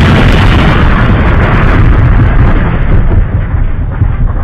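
Fireworks crackling and popping without a break, loud and dense, with a heavy low rumble.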